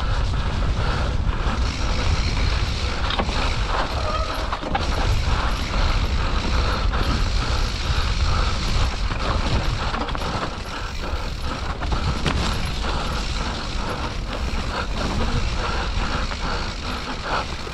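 Mountain bike descending a wet, muddy trail: a continuous rumble of tyres over loam and roots with the bike's chain and frame rattling, clicking and creaking over the bumps.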